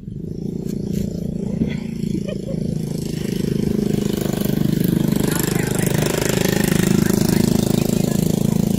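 A motor vehicle's engine running steadily close by. It starts abruptly, grows louder over the first few seconds, then holds.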